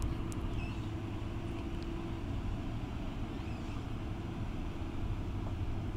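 Tugboat's diesel engines running steadily under way, a low rumble with a steady hum over it.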